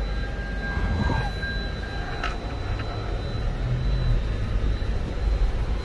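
Inside the cabin of a Lexus GX V8 SUV being driven: a steady low rumble of engine and road noise, swelling slightly about midway.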